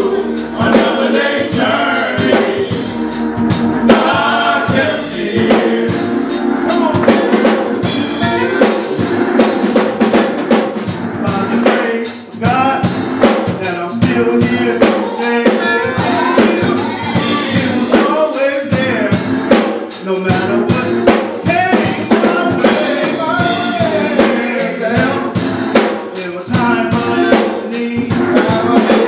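Men's gospel choir singing into microphones, with a live drum kit playing along.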